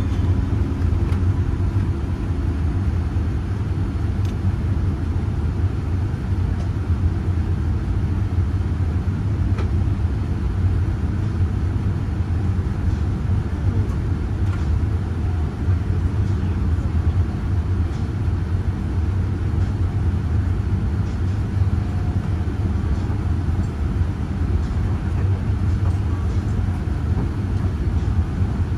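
Steady low rumble of a Boeing 787-9's cabin noise: engines and airflow heard from inside the cabin, even in level throughout.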